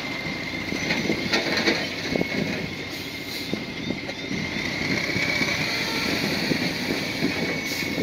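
Crawler bulldozer working, its diesel engine running with irregular clanking from the tracks, over a steady high whine.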